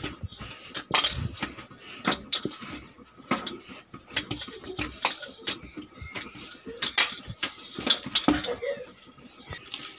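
Hands kneading soft, oiled yeast dough for pizza in a stainless-steel bowl: irregular wet slaps and squelches.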